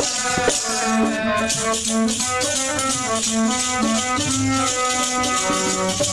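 Devotional instrumental music between sung lines of a refrain: a melody in held, stepping notes over a steady shaking rattle-type percussion.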